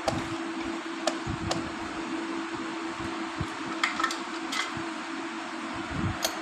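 Light clicks and clinks of Royal Enfield Bullet clutch parts being handled during reassembly, about eight in all and bunched around the middle, over a steady workshop fan hum.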